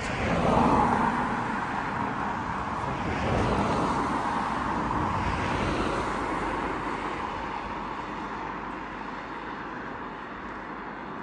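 Cars passing on the road. Tyre and engine noise swells about a second in and again a few seconds later, then fades as they drive away.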